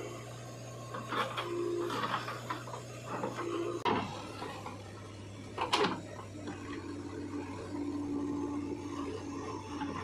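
JCB 3DX backhoe loader's diesel engine running steadily while the backhoe digs into soil. A hydraulic whine comes and goes, longest in the second half, and the bucket teeth scrape and knock in the dirt several times, loudest about six seconds in. The engine note dips slightly about four seconds in.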